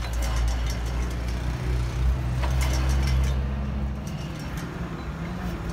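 A motor vehicle engine running steadily with a low hum that drops away about four seconds in, with a few light clicks partway through.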